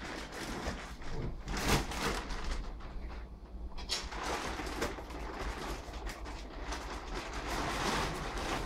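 Plastic wrapping crinkling and rustling as it is pulled off a foam mattress, with irregular sharper crackles scattered through it.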